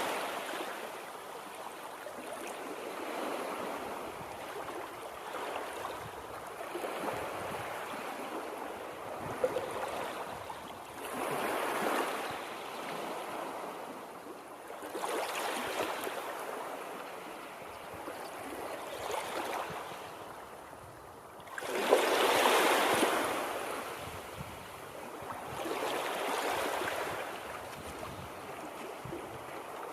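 Moving water rushing steadily, swelling and easing every three to four seconds, with the strongest surge about 22 seconds in.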